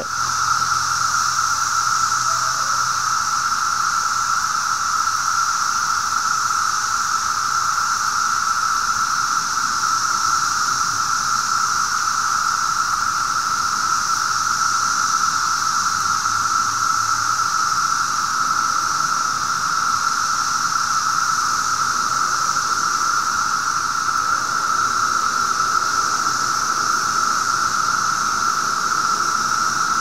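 A dense chorus of periodical cicadas singing: a steady, unbroken drone held at one pitch, with a fainter high hiss above it.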